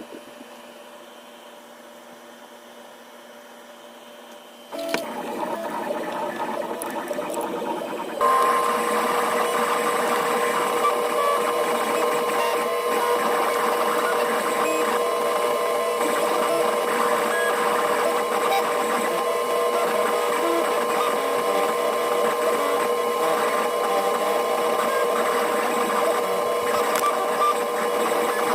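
FoxAlien XE laser engraver at work: a faint hum steps up about five seconds in, and a few seconds later the stepper-motor-driven gantry starts moving, giving a steady whine with a busy, rapid chatter as it engraves.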